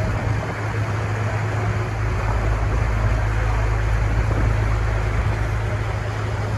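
Steady low drone of a passenger boat's engine, under an even rush of water and wind.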